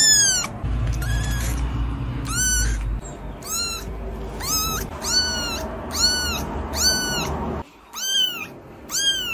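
Kitten meowing over and over: about ten short, high-pitched mews, roughly one a second.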